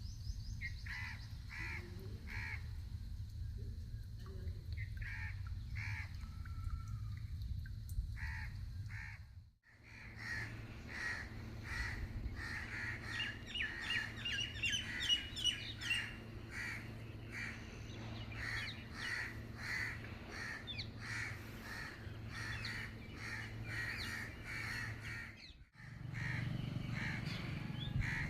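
Crows cawing over and over, several calls a second in runs, over a steady low hum. The sound drops out briefly twice, about ten seconds in and again near the end.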